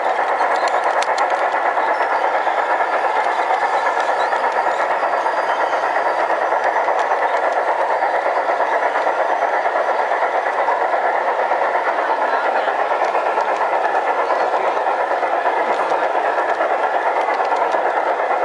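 Large-scale model trains rolling past close by on their track, over a steady background din.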